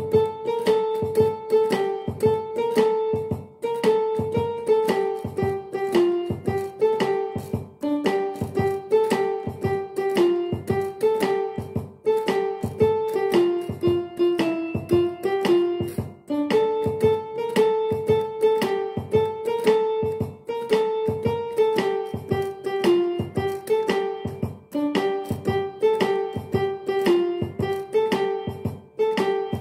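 Portable electronic keyboard played with a piano voice: a one-handed melody of quickly struck, often repeated notes, with short breaks in the phrasing about halfway through and again near the end.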